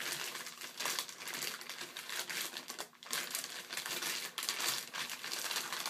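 Thin white packaging wrap crinkling and rustling as hands pull it off a figure, with a brief pause about three seconds in.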